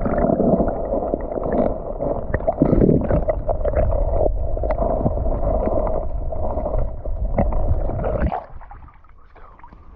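Muffled water gurgling and sloshing close to the microphone, with scattered small clicks, cutting off abruptly about eight seconds in.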